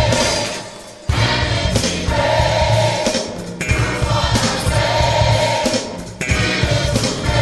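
Gospel worship music: a choir singing held notes over a steady bass accompaniment, in phrases broken by short pauses about every two and a half seconds.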